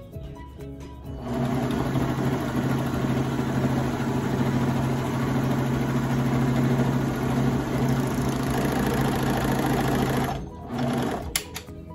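Baby Lock Vibrant serger running steadily as it sews a side seam, starting about a second in and stopping about ten seconds in. A short second burst follows, then a couple of clicks.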